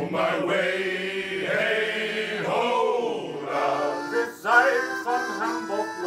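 Men singing a sea shanty, a lead singer taking the opening lines for the choir to answer.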